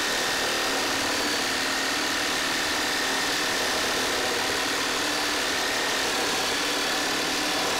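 Makita 18V X2 LXT (36V) brushless cordless reciprocating saw running steadily, its blade sawing through a pressure-treated 4x6 lumber post.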